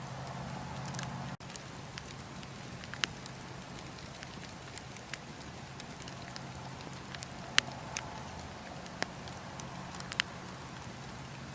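Bonfire crackling: scattered sharp pops and snaps over a steady hiss. The loudest pop comes a little past halfway.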